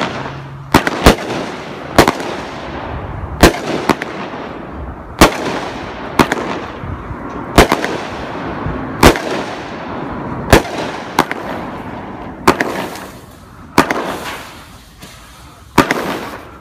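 A World Class 'Graffiti' 200-gram, 15-shot consumer firework cake firing: shots launch and break one after another, with sharp bangs about every second and a hiss fading after each. Near the end there is a short lull before one last bang.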